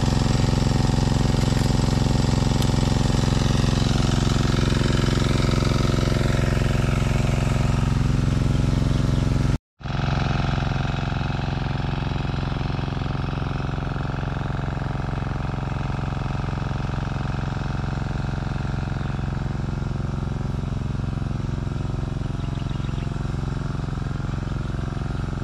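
A small engine running steadily at an even speed. It drops out for a split second about ten seconds in, then runs on slightly quieter.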